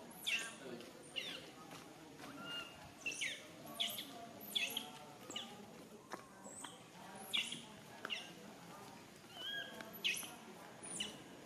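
Infant macaque crying: a string of short, high-pitched squeals that each fall steeply in pitch, coming about one or two a second.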